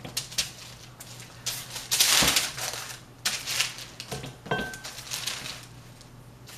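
Hands kneading soft yeast dough on a sheet of parchment paper, the paper crinkling and rustling in irregular short bursts, loudest about two seconds in.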